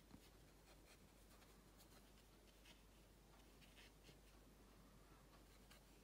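Near silence, with faint, brief, irregular scratches of a fine-pointed paintbrush dabbing small strokes on watercolour paper.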